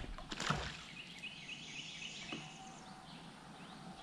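Quiet river ambience: a bird sings a quick run of about six short, high notes in the middle, after a couple of soft knocks about half a second in.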